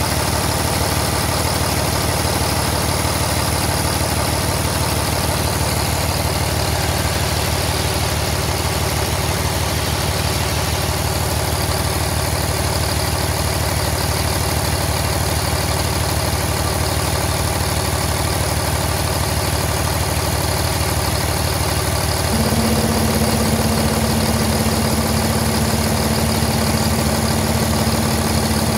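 2012 International MaxxForce 11 inline-six diesel engine idling steadily. About 22 seconds in, a steady droning tone joins it and the sound gets slightly louder.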